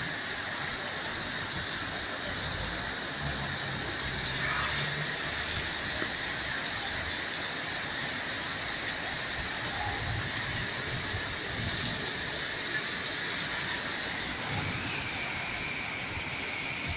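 Heavy thunderstorm downpour: a steady hiss of rain pouring down, which cuts off abruptly at the end.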